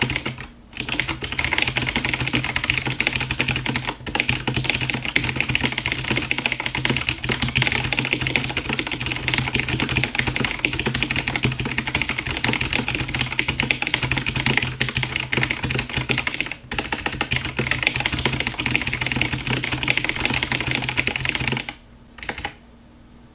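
Very fast typing on a ProHT mechanical keyboard with clicky Outemu Blue switches: a dense, continuous clatter of crisp key clicks with a few brief pauses, stopping about 21 seconds in.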